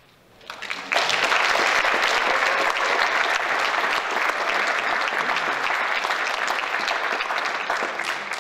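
Audience applause: after a brief hush, clapping starts about half a second in, is at full strength within a second and then keeps going steadily.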